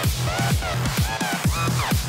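Electronic dance music with a steady kick-drum beat and short synth notes that slide in pitch.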